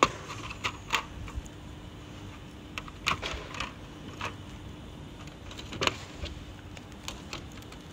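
Scattered light clicks and taps as the thin black metal cover of a lithium-ion battery module is pried up, lifted off and handled, over a faint steady hum.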